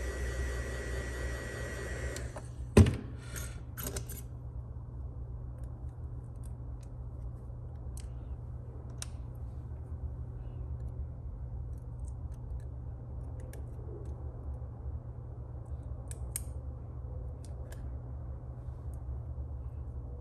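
A heat gun blowing with a steady whine cuts off about two seconds in, followed by one sharp knock and a few clicks. After that come sparse faint clicks of small tools and phone parts being handled over a low steady hum.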